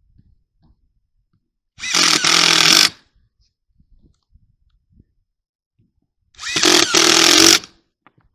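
Cordless drill driving screws through the flange of a rubber vent pipe boot, in two runs of about a second each, one about two seconds in and one near the end, its whine rising as each run starts.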